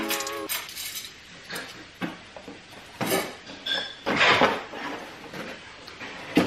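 Handling noise as things are packed into a cardboard box: a few short knocks and clicks, with a brief rustle about four seconds in.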